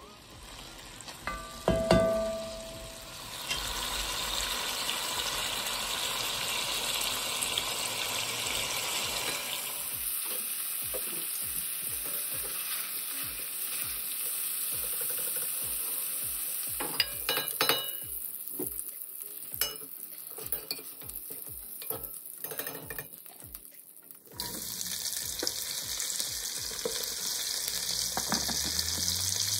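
Sliced andouille sausage sizzling in an enamelled pot, stirred with a wooden spatula that knocks loudly against the pot about two seconds in and then scrapes and clicks in a steady rhythm. Near the end, cut okra frying in the sausage fat with a brighter, hissier sizzle.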